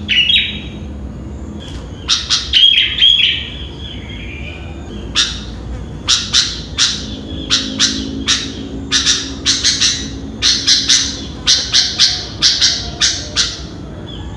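Sooty-headed bulbul (kutilang) calling: a quick cluster of calls a couple of seconds in, then a long series of short, sharp calls about two a second from about five seconds in until near the end.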